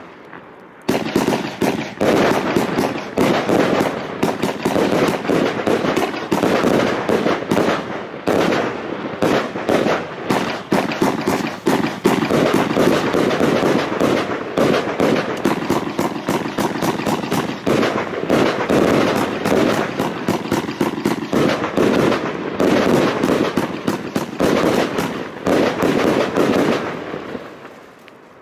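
A 239-shot 1.3G fireworks compound cake firing a rapid, dense barrage of launches and bursts. It starts after a brief pause about a second in and dies away near the end.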